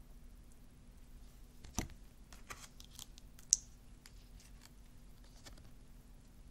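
Glossy oracle cards being handled on a table: a low knock about two seconds in, then a run of light clicks and slides, with one sharp click about three and a half seconds in, the loudest sound.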